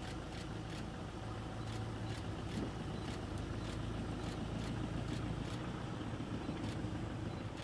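Safari vehicle's engine idling with a steady low hum, with faint sharp clicks about three times a second over it.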